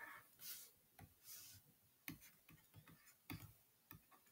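Faint taps and light scratches of a stylus on a tablet screen as numbers are written by hand, a few short ticks in the second half, with two soft, hiss-like strokes earlier on.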